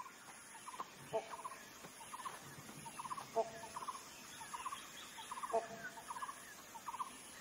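Faint chorus of wild animal calls: short trilled calls repeat a couple of times a second. A fuller, lower call comes in about every two seconds.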